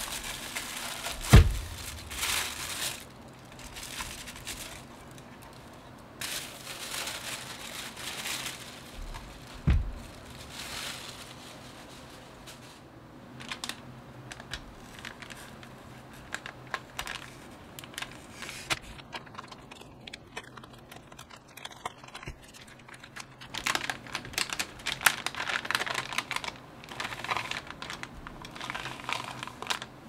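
Tissue wrapping paper and a metallic anti-static bag crinkling and rustling as they are unfolded and handled. Two dull thumps come about a second and a half in and about ten seconds in, the first the loudest. The crinkling is busiest near the end as the bag is opened.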